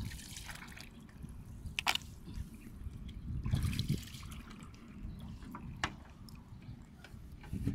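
Shallow water trickling through grass, with scattered drips and small splashes; one is sharper, about two seconds in.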